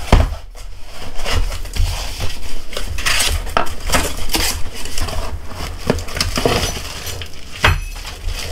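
Cardboard box being opened by hand and its cardboard inner tray slid out, with plastic wrapping crinkling: a busy run of irregular scrapes, rustles and knocks, the loudest right at the start.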